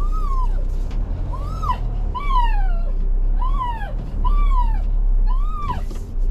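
A run of about eight short animal calls, each rising and then falling in pitch, coming roughly one a second, over a steady low rumble of wind on the microphone.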